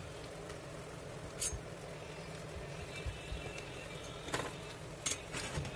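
A few sharp metal clicks and taps as a small screwdriver turns a screw to clamp a hacksaw blade into a metal holder, over a steady low hum.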